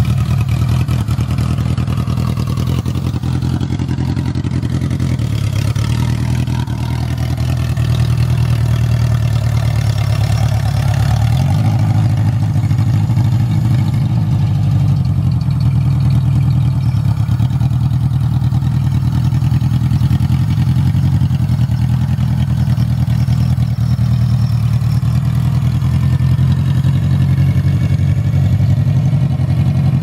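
K-series-swapped Honda Civic wagon's engine running steadily at low revs as the car creeps slowly away, its note shifting slightly about a third of the way in.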